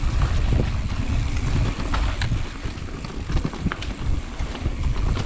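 Wind buffeting the microphone while riding a mountain bike down a dirt trail, with a steady rumble from the tyres and a few sharp clicks and knocks as the bike rattles over bumps.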